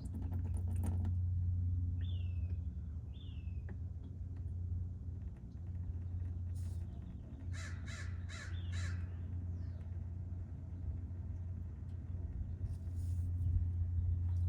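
A crow cawing four times in quick succession about eight seconds in, with two short high chirps a few seconds earlier, over a steady low hum.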